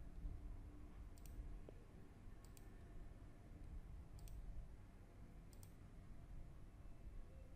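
Faint computer mouse clicks, four short clicks or quick double clicks spread out about a second or more apart, over a low steady background noise.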